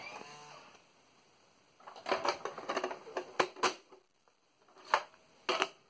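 Hard plastic clattering and clicking as the Apple Macintosh Portable's display lid is folded down shut over the keyboard. Two sharp knocks about half a second apart follow near the end.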